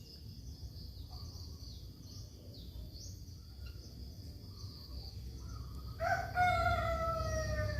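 Faint, scattered high chirping from small birds, then about six seconds in a loud bird call: one long note with harmonics that falls slowly in pitch.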